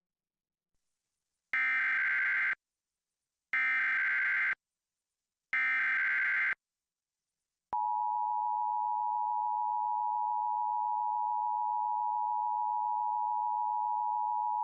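Emergency Alert System tornado warning tones: three identical one-second bursts of the SAME digital header, each about two seconds apart, then about eight seconds in the steady two-tone EAS attention signal starts and holds. The header bursts carry the alert's coded event and area, and the attention signal announces the spoken warning that follows.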